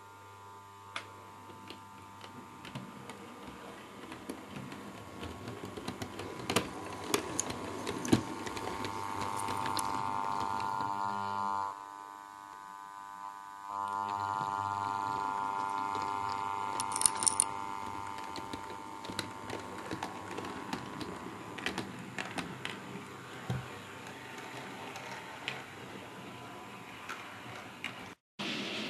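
Model Class 56 diesel locomotive running along the track: a steady electric motor whine with the wheels clicking over rail joints and points. The whine grows louder as the locomotive approaches, drops out for a couple of seconds, comes back and then fades away.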